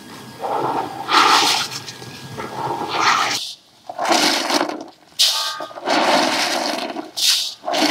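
Water splashing and sloshing in a plastic basin as cockles are scrubbed and rinsed by hand under a running hose. It comes in surges that break off briefly several times.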